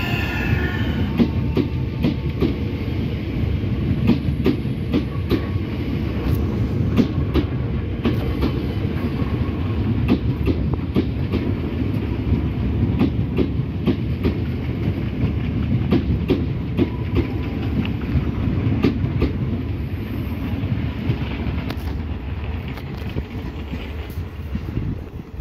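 Southeastern electric multiple-unit train running past along the platform: a steady low rumble with its wheels clicking irregularly over rail joints. The rumble fades near the end as the train draws away.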